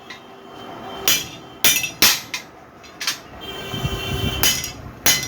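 A series of sharp clinking strikes, about six in five seconds at uneven spacing, each ringing briefly.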